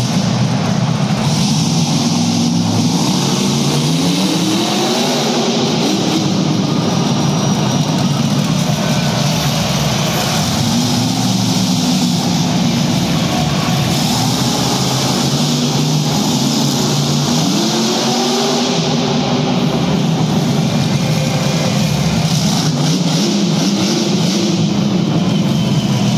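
Monster truck engine running loud, revved up and down several times as the truck drives, with the pitch climbing and falling on each rev.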